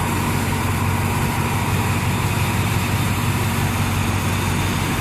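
Diesel engine of a Thai State Railway train running with a steady low hum, over an even rumble.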